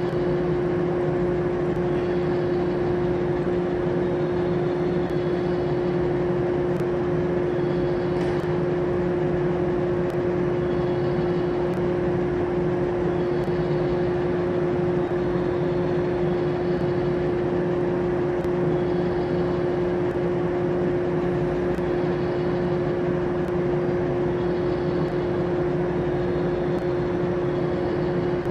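A 521 series electric train standing at the platform with its onboard equipment running: a steady hum with a constant mid-pitched whine that does not change. A faint high chirp recurs every few seconds.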